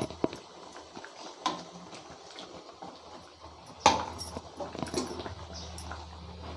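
Steel ladle clinking and scraping against a nonstick kadai of thick curry, with scattered light knocks and one sharp clank about four seconds in as the stirring starts. A low hum runs under the second half.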